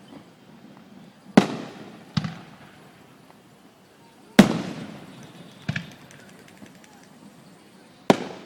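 Aerial fireworks shells bursting: five sharp booms, one to three seconds apart, each trailing off in a rolling echo, the loudest about four seconds in.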